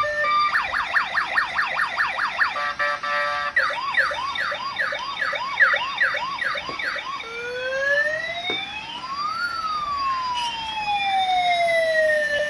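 Electronic siren sound from a toy police car. It runs through a fast yelp, then a brief beep pattern, then slower sweeps, and ends in a long slow wail that rises and then falls.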